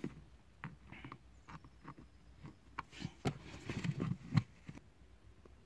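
Irregular faint clicks and taps of a flat-blade screwdriver prying and pulling plastic trim clips under a car's dashboard, with a few sharper knocks a few seconds in.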